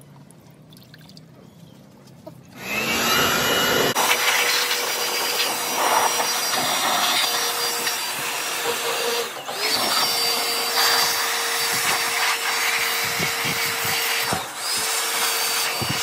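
A faint trickle of water poured into the windshield cowl, then, a little under three seconds in, a handheld electric blower switches on and runs with a steady whine and rush of air, dipping briefly twice as the trigger eases. It is blowing out the cowl drain.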